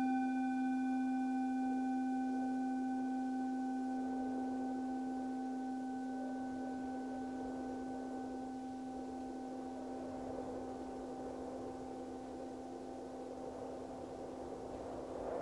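A singing bowl rings out after a single strike, in one long, slowly fading tone. Its higher overtones die away within the first few seconds. A soft wind hiss runs underneath and swells near the end.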